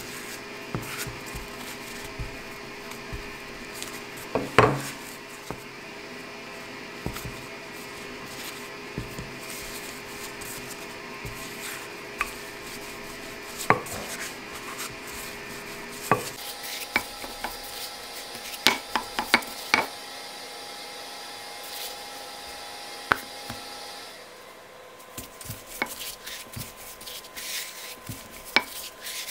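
Pie dough being pressed by hand and rolled out with a wooden rolling pin on a floured granite countertop: soft rubbing with scattered sharp knocks against the stone, including a quick cluster of knocks about two-thirds of the way through.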